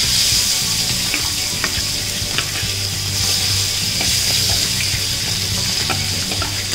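Marinated prawns sizzling in hot oil in a frying pan, with scattered light taps and scrapes of a spatula as they are stirred and the marinade is scraped in.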